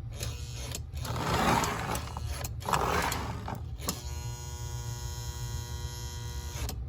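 Electric motor of a Lionel 2243 Santa Fe F3 toy train locomotive running on the test bench, its direction-reversing E-unit just cycled back to forward. The running sound swells and cuts out briefly a few times over the first four seconds, then settles into a steady buzzing hum that stops suddenly near the end.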